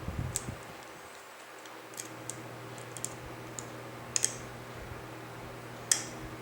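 Small, irregular metallic clicks and ticks from a short hook pick working the security pins inside an Ace Maximum Security padlock during single-pin picking, over a low steady hum.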